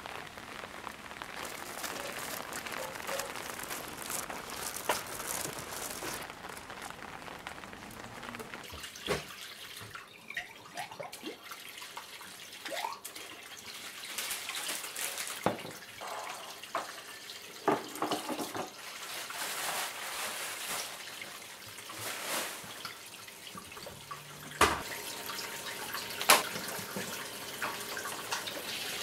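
Water running from a kitchen tap into a sink while dishes are washed, with a scatter of sharp clinks and knocks of glassware and crockery.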